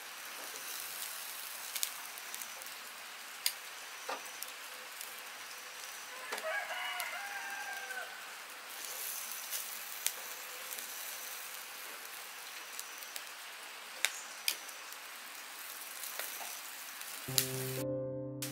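Chicken feet sizzling on a charcoal grill: a steady hiss with scattered sharp pops and crackles as the marinade drips onto the coals. A short warbling bird call comes about seven seconds in, and music starts just before the end.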